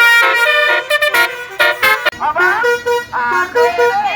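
Telolet (basuri) multi-tone horns playing a melody in short stepped notes, with a few sliding notes after about two seconds.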